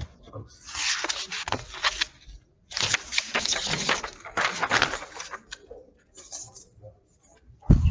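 Two stretches of rustling, scratchy noise, the first about a second and a half long and the second about two and a half seconds, followed by a low thump near the end.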